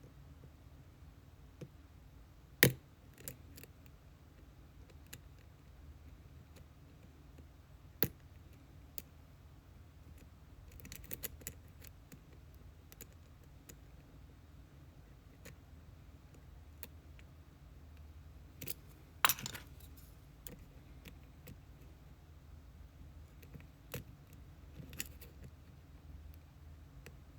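Lock pick and tension wrench working the pin stack of an Abus C83 padlock, repinned with its spool drivers facing the key pins: scattered faint metallic clicks and ticks, with two sharper clicks, a few seconds in and about two-thirds of the way through.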